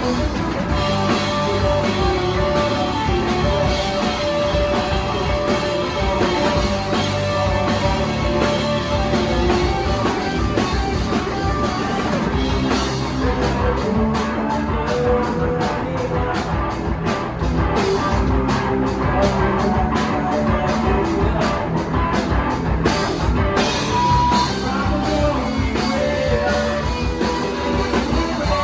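Live rock band playing a song: electric guitars, bass guitar and drum kit, steady and loud.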